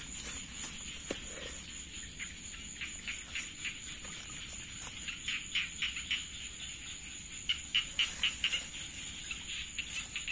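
Night insect chorus: a steady high-pitched drone with clusters of rapid clicking calls, thickest about halfway through and again near the end.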